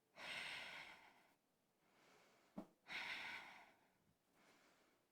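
A woman's slow, audible breathing close to the microphone while holding plank: two long breaths about three seconds apart, with fainter breaths between them.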